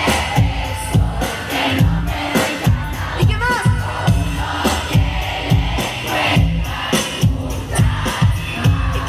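Live band playing pop music with a steady kick-drum beat.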